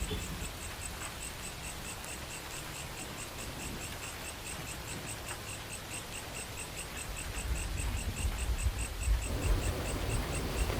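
Night insects, cricket-like, chirping in a steady pulsing rhythm of about six pulses a second. A low rumble underneath grows louder over the last few seconds.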